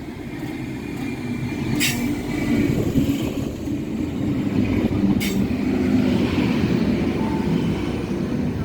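A train running through the station, its rumble growing louder over the first few seconds and then holding steady, with two sharp clicks along the way.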